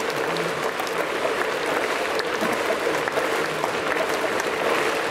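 Baseball stadium crowd clapping: many hands clapping at once over a steady crowd hum, with faint voices among it.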